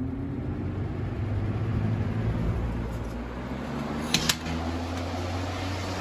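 Lasko 3733 20-inch box fan starting up on low speed: its motor hum settles after rising in pitch, and the rush of air builds over the first couple of seconds, then runs steadily. Two quick sharp clicks about four seconds in.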